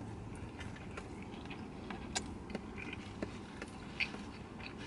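A few soft, scattered clicks and crinkles from a paper food wrapper being handled during eating, over a low steady hum.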